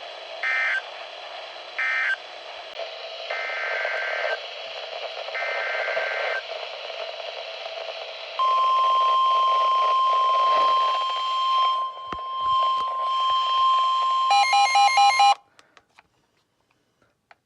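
Emergency Alert System weather radio alert signalling, over a hiss of radio static. It opens with short screeching data bursts that end the previous warning, then two longer data bursts that open the next alert. About 8 seconds in, the steady 1050 Hz weather-radio alarm tone sounds for about seven seconds. It ends in a second of rapid beeping at several pitches and cuts off suddenly.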